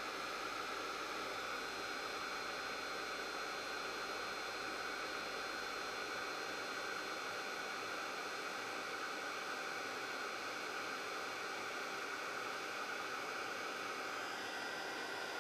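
Handheld hot-air blower running steadily, a constant rushing noise with a faint motor whine, drying a crackle finish so that it cracks.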